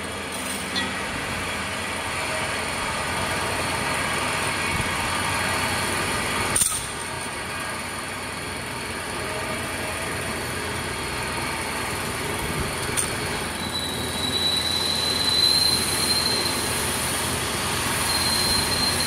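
Steady running noise of factory machinery, with one sharp knock about six and a half seconds in. A thin, high whine comes in past the middle and runs on.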